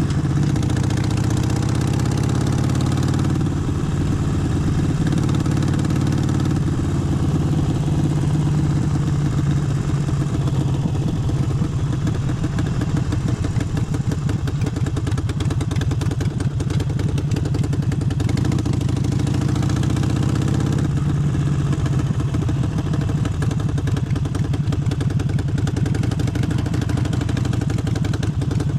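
Harley-Davidson Forty-Eight's air-cooled V-twin running at low revs with a pulsing exhaust note. Its pitch rises a few times with the throttle, most clearly about 21 seconds in.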